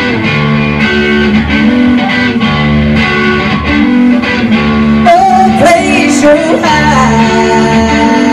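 Live band playing: drum kit, bass guitar and electric guitar, with a woman singing into a microphone, her voice most prominent from about five seconds in.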